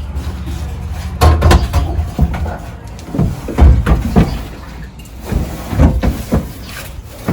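Irregular clunks and scrapes of a car's fuel tank being wiggled and pulled loose from underneath the car.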